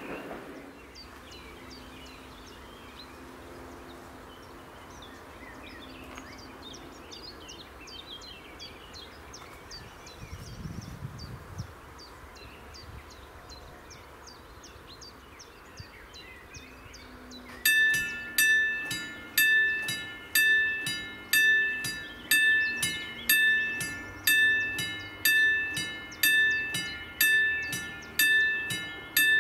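Level crossing warning bell starts ringing about two-thirds of the way in: a steady, repeated ding a little over once a second, each strike ringing out and fading. It signals that the crossing has been activated for an approaching train.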